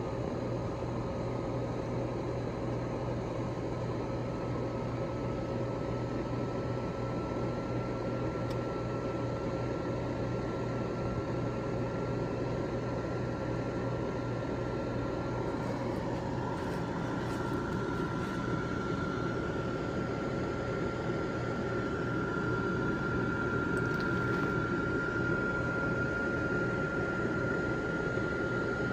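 Built-in blower fan of a 20-foot Gemmy airblown nutcracker inflatable running steadily as it inflates the figure. It gives a constant hum with a thin whine that slowly rises in pitch.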